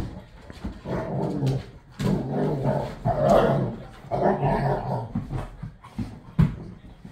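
Two golden retrievers play-fighting, growling in rough bouts of half a second to a second, one after another. There is a sharp knock about six seconds in.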